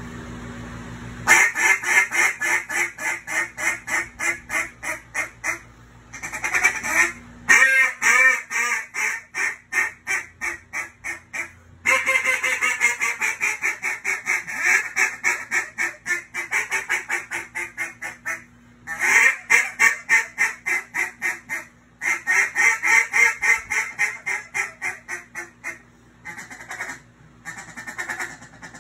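JJ Lares T1 duck call blown in a calling-contest routine: loud runs of rapid quacks, each run lasting a few seconds, broken by short pauses.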